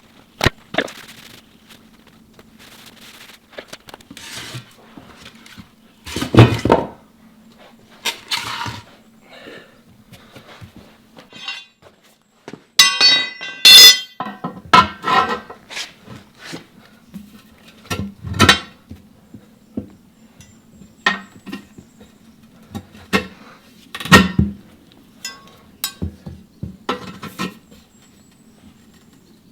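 Metal tools clanking and clinking against a steel wheel rim while a tubed backhoe tire is being worked onto it: irregular knocks, with a short burst of metallic ringing about thirteen seconds in.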